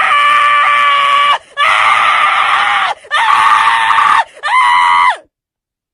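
A person screaming in long, high-pitched held cries. There are four in a row, each about a second or more with a short breath between; the last is shorter and bends down in pitch. The screaming stops abruptly about five seconds in.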